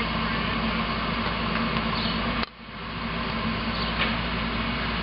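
Heavy equipment's diesel engine running steadily with a low drone. About halfway through, the sound drops out abruptly and fades back in within half a second.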